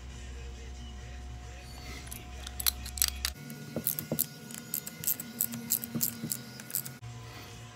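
Metal hand tools clicking and clinking against a gear puller on a Vittorazi Atom80 reduction gearbox as a bolt is turned, in quick irregular clusters from about halfway in, over a steady low hum.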